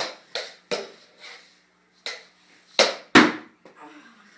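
A series of about seven sharp knocks at uneven intervals, the two near the end the loudest.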